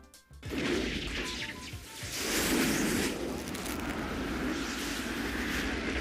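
A rushing, rumbling whoosh sound effect that swells about two seconds in and then holds steady. A few short high tones sound over it at first.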